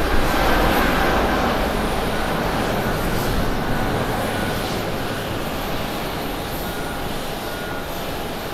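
Twin turbofan engines of a Boeing 777 at takeoff thrust, a steady roar that slowly fades as the airliner climbs away. A faint whine sits in the roar during the first second or so.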